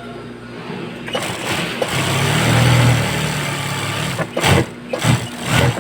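Single-needle sewing machine stitching in bursts: one long run starting about a second in, then two short bursts near the end.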